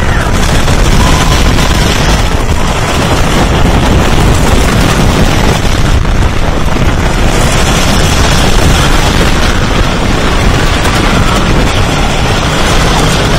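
Wooden roller coaster train running at speed over its wooden track, heard from the back row: a loud, steady rumble and rushing noise that doesn't let up.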